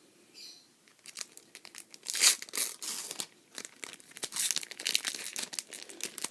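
Foil wrapper of a Pokémon trading card booster pack being crinkled and torn open by hand, in a run of short crackles and rips, loudest about two seconds in; the pack is hard to open.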